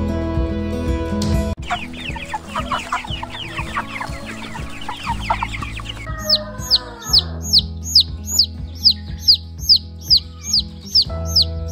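Domestic chicks peeping. First a crowd of chicks peep over one another; from about six seconds in there are regular single high peeps, about two a second, each one a falling note.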